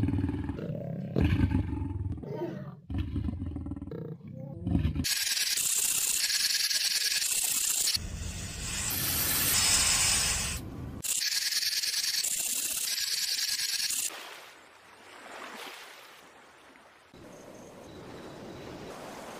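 A lion roaring in a series of deep, pulsing grunts for about five seconds. Then comes a loud, drawn-out snake hiss lasting about nine seconds, after which the sound drops much quieter.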